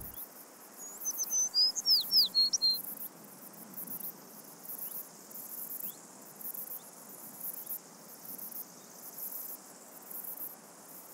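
Insects chirring in a very high, regular pulse, about one every three-quarters of a second, with a bird's quick sweeping chirps loudest in the first few seconds.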